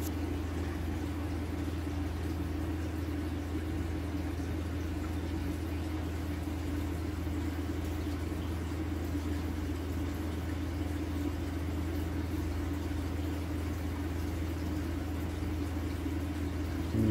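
Steady low mechanical hum of running aquarium equipment, with an even faint hiss over it, holding unchanged throughout.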